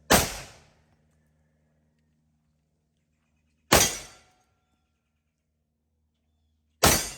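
Three gunshots from a Desert Eagle .50AE pistol, about three seconds apart, each a sharp crack that dies away within half a second. After the second and third shots a faint ringing of a hit steel target follows.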